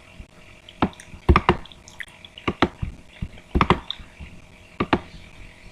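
Computer keyboard typing: about a dozen separate key clicks at an uneven pace, some in quick pairs, the loudest about a second in.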